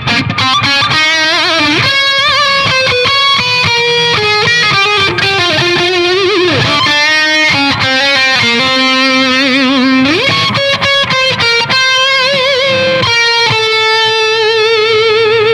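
Distorted electric guitar lead played through a Marshall DSL50 valve head and a Marshall 1960 4x12 cabinet: fast single-note runs with upward string bends and vibrato, ending on a long held note with wide vibrato.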